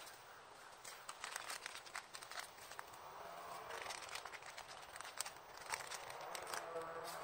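Close handling noise of a crinkly packet rustling and crackling in gloved hands, with irregular small clicks, played at double speed.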